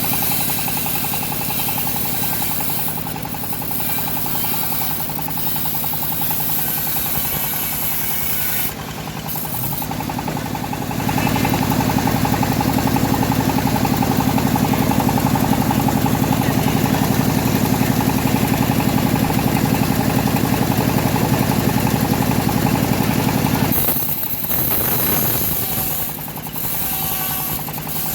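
Homemade engine-driven band sawmill running steadily while sawing teak. It gets louder and fuller from about 11 seconds in, then drops back about 24 seconds in.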